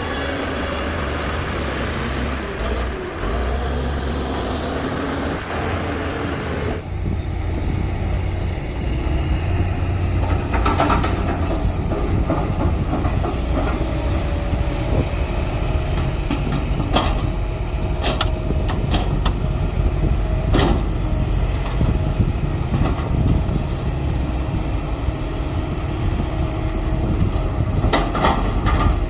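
Heavy diesel earthmoving machinery running with a deep, steady engine rumble. The sound changes abruptly about seven seconds in, and from about ten seconds on it is broken by scattered metallic clanks and knocks.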